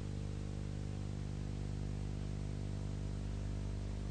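Steady low electrical hum over a faint hiss, with no other sound: the background noise of the soundtrack between narration lines.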